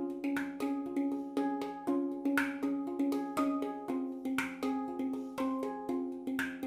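HI-Pan F Mystic 7 steel handpan played with the hands: a steady rhythm of struck notes, several a second, each ringing on into the next, with one low note returning again and again. The instrument has not yet had its final fine-tuning.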